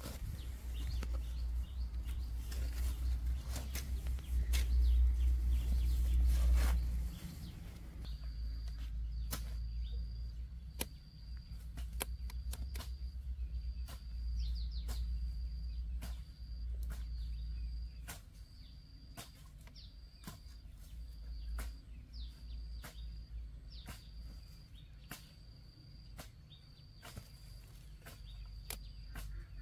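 Outdoor ambience: a heavy low rumble, like wind on the microphone, for the first seven seconds or so, then a short high chirp repeating about once a second, with scattered sharp clicks and taps.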